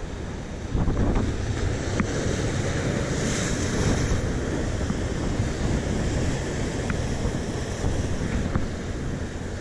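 Sea surf washing against a rocky shore, with wind buffeting the microphone; a few faint ticks come through it.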